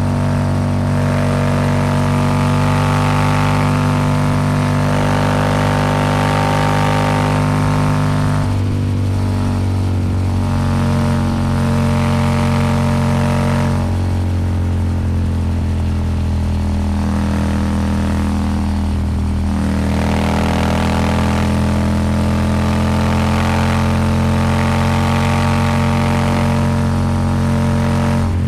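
Royal Enfield Super Meteor 650 parallel-twin engine running under throttle at road speed through an aftermarket slip-on exhaust, with wind rush. The engine note changes three times: about a third of the way in, around halfway, and about two-thirds of the way through.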